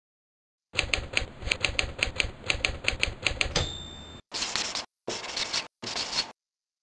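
Typewriter keys clacking quickly, about five strikes a second, ending in the ding of the carriage bell. This is followed by three short scratchy strokes of a marker pen on paper.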